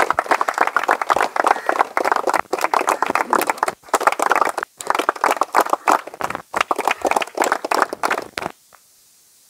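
A group of people applauding, dense steady hand-clapping that cuts off suddenly near the end.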